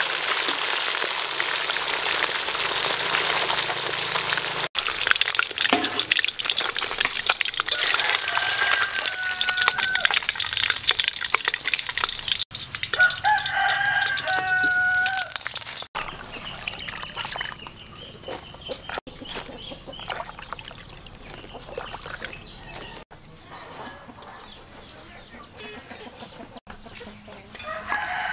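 A rooster crowing twice, each a long held call, over the sizzle and crackle of fish frying in oil in a wok. Past the middle the sizzling gives way to a quieter background.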